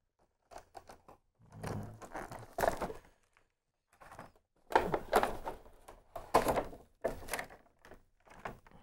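Clear plastic blister tray crackling and knocking as Bakugan figures and bagged cores are pulled out of it, in about five short bursts of handling noise.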